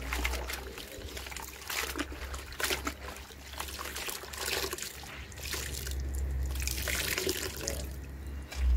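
Cloth napkins being hand-washed in a plastic tub of soapy water: sloshing, squeezing and wringing, with water trickling and dribbling back into the tub. A low rumble runs underneath and grows louder near the end.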